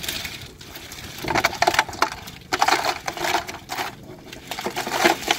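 Boiled crawfish clattering as they are poured from a perforated aluminum steamer basket into a plastic cooler, a dense rattle of shells coming in several surges.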